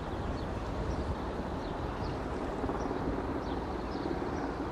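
Steady low outdoor rumble, with faint short high chirps now and then.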